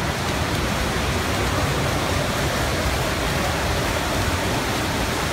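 Splashing from a field of swimmers racing freestyle, their arms and kicking feet churning the water in a steady, even wash of noise.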